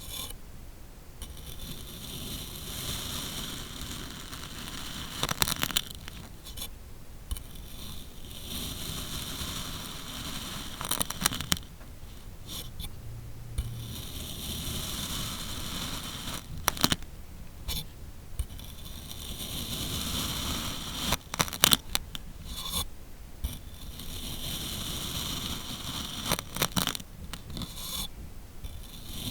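Kinetic sand being cut and scraped with a blade: repeated gritty scraping strokes a few seconds long, broken by short pauses and sharp clicks.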